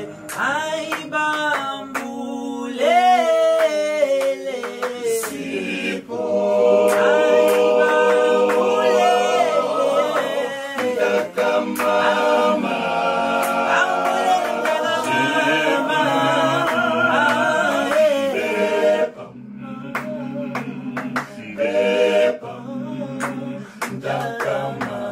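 Male a cappella vocal group singing in harmony, voices only with no instruments. The full chords are loudest through the middle and drop back softer about three-quarters of the way through.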